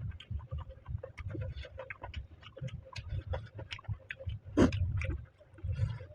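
Close-miked chewing: a run of short wet mouth clicks and crackles over low jaw thumps, with one louder crunch about four and a half seconds in.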